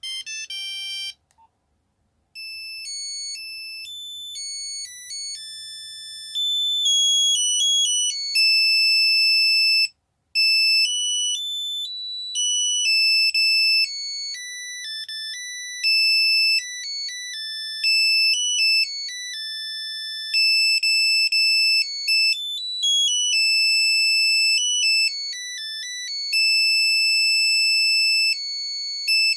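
Nokia 3210 ringtones, a monophonic buzzer playing fast melodies of single beeping notes. One tune ends about a second in, and after a short pause another starts and plays on with a brief break about a third of the way through.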